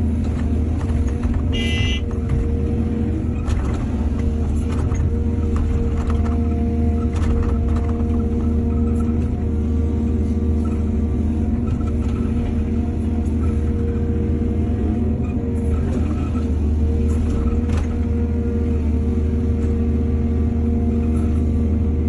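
Excavator's diesel engine running steadily under load, with scattered sharp knocks and a brief high squeal about two seconds in.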